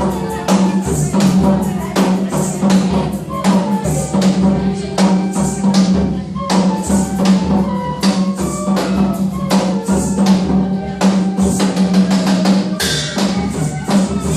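Nepali folk band playing: madal hand drum and jingling percussion keep a steady rhythm under a held low note and a melody.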